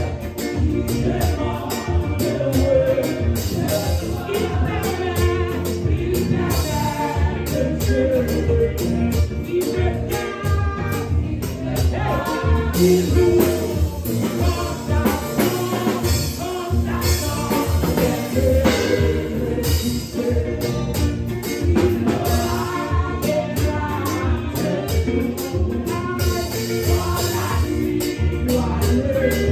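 Group of women singing a gospel worship song together through microphones, over instrumental accompaniment with a steady beat.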